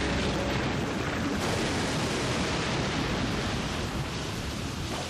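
A storm outdoors: a steady, dense rushing noise of wind and rain.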